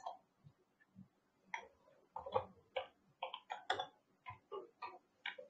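Computer keyboard typing: a quick, uneven run of faint keystroke clicks, starting in earnest about a second and a half in.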